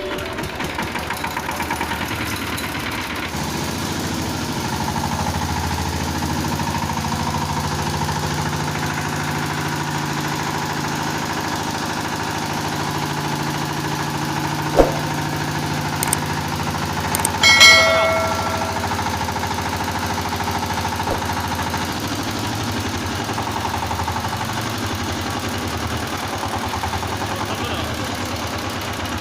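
Single-cylinder Chinese diesel power-tiller engine running steadily at idle, with the extra side-cover gear noise fixed. A sharp click comes about halfway through, and a short metallic ring a few seconds later.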